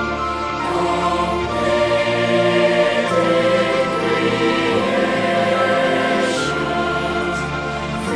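A choir singing a gospel song in held, full chords that change every second or two, with low voices or notes underneath.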